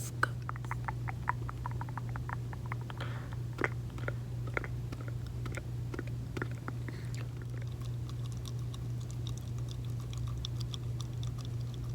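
Gum chewing and wet mouth clicks close to the microphone: a quick run of clicks and smacks in the first two seconds, then scattered ones, over a steady low hum.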